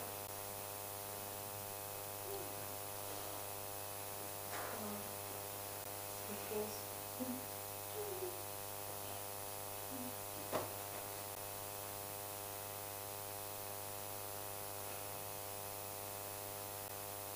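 Steady electrical mains hum with many overtones in the microphone and sound system, with a few faint brief noises and a single sharp click about ten and a half seconds in.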